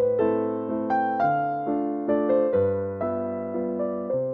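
Background music: a gentle piano tune, notes and chords struck about twice a second, each fading before the next.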